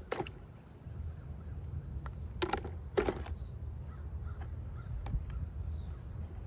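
A crow cawing twice, two short harsh calls about half a second apart a little over two seconds in, over a low steady rumble.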